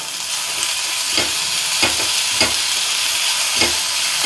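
Onions and freshly added tomato pieces sizzling in hot oil in a stainless steel kadai, with a steady hiss. A perforated steel ladle scrapes and knocks against the pan about four times as they are stirred.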